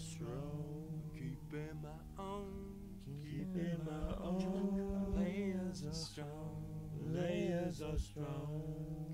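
Music: a man singing over a steady low bass line.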